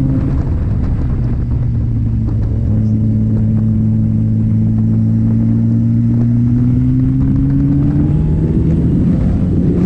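Sport motorcycle engine running under way at steady throttle, its note climbing slowly over several seconds and then dropping near the end.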